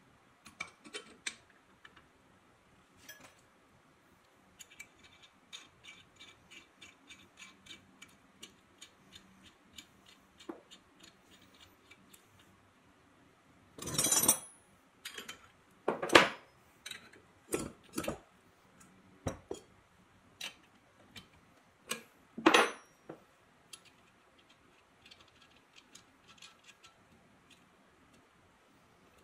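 Small steel parts and cast-iron drill press head parts clicking and clinking as they are handled and fitted together. A run of light, even ticks, about two a second, gives way to a handful of louder metal clinks and knocks in the middle.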